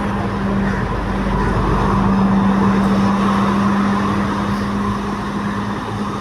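Diesel engine of a Class S9 diesel multiple unit's power car passing directly beneath, a steady engine drone that swells to its loudest about two seconds in and then eases a little.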